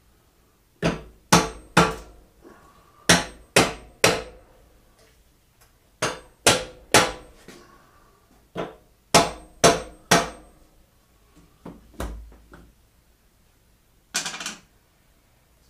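Hammer tapping on a stuck part of a K.O. Lee tool and cutter grinder to loosen it. The sharp strikes come in quick sets of three, about four sets in a row, then a softer set, followed by a brief scrape near the end.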